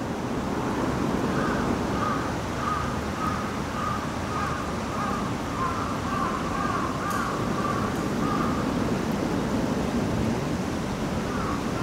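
A bird calling over and over in short notes of nearly the same pitch, against steady background noise; the calls stop about nine seconds in.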